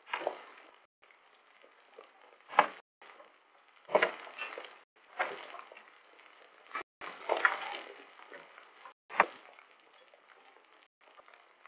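Scattered hailstones striking hard surfaces close to a doorbell camera: sharp, irregular knocks every second or two over a faint hiss of falling hail or rain, heard through the camera's small microphone, which briefly cuts out now and then.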